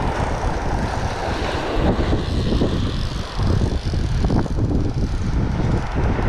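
Strong wind buffeting the microphone in gusts, over the wash of waves breaking on a sandy beach.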